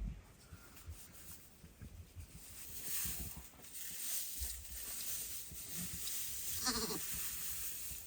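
A single short bleat from a sheep or goat about two-thirds of the way in, over a steady hiss of background noise.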